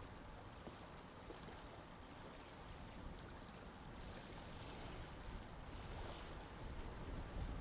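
Lake ambience: water lapping in a steady, even wash, with a low rumble underneath.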